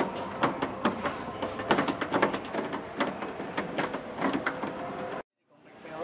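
Irregular metallic clicks and scrapes of a hex key working the door striker bolts on a car's door pillar, as the striker is unbolted.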